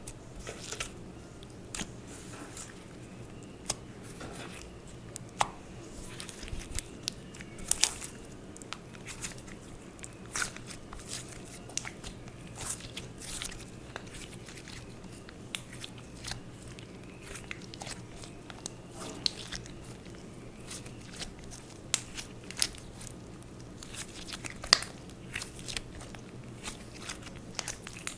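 Slime being worked by hand, giving irregular sticky clicks and small pops, several a second at times, over a faint steady low hum.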